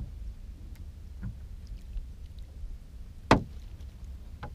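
Handling knocks on a small fishing boat as a hooked perch is reeled in and lifted aboard: one sharp knock a little over three seconds in, the loudest, with fainter knocks before it and near the end, over a steady low rumble.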